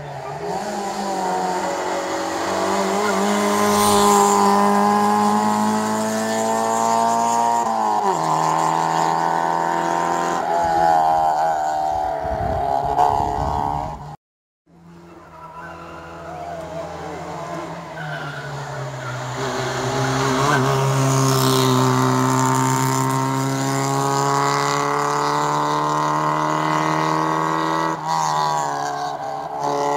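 Rally cars at full throttle on a tarmac special stage. One engine note climbs as a car approaches and drops sharply as it passes, about eight seconds in. After an abrupt cut halfway through, a second car's engine climbs, holds high and drops near the end, with some tyre squeal.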